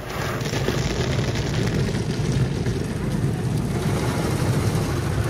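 Automatic tunnel car wash heard from inside the car's cabin: water spraying onto the car and cloth brush strips sweeping across the windshield, a steady rumbling wash.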